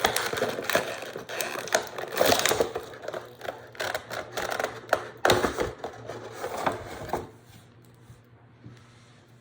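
Plastic packaging crackling and clicking in quick, irregular bursts as the action figure is worked out of its plastic tray, stopping about seven seconds in.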